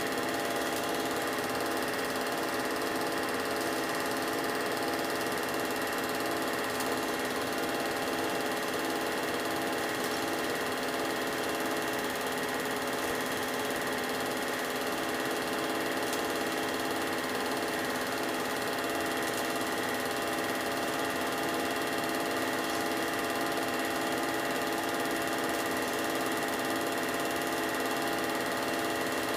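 Film projector running: a steady mechanical whirr and clatter of the motor and film transport, unchanging throughout.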